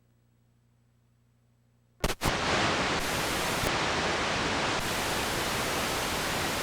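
Faint hum, then about two seconds in a sharp crackle and a sudden loud, steady hiss of analog TV static, the sound of the recorded broadcast ending and the tape running into blank snow.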